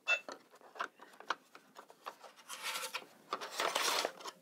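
Toy cash register in use: a short beep and click as a keypad button is pressed, a few more plastic clicks, then a plastic play card scraping and rubbing against the register's card reader for a couple of seconds.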